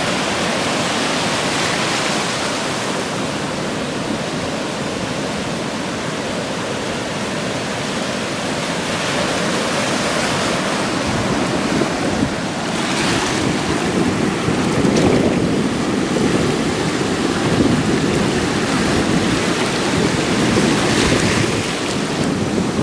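Ocean surf: waves breaking in a continuous wash. It swells louder from about halfway through, with several surges as bigger waves break.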